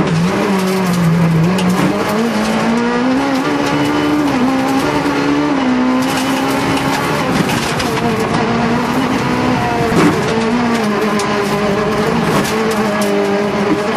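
Rally car engine heard from inside the cockpit at stage speed, its revs rising and dropping in steps with gear changes as the gear indicator goes from second to fourth. A brief sharp knock about ten seconds in.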